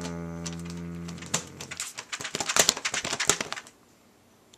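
A low steady hum that fades out within the first two seconds, followed by a rapid flurry of clicks from typing on a laptop keyboard for about two seconds.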